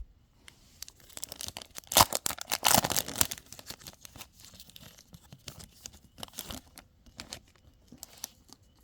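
A trading card pack wrapper being torn open, loudest about two to three seconds in. Scattered crinkles and clicks follow as the wrapper and cards are handled.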